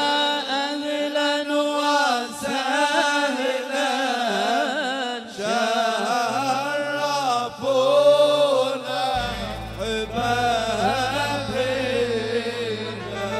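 A singer draws out a long, ornamented Arabic vocal line over live music. A low held bass note comes in about six seconds in, and a deeper, fuller bass from about nine seconds.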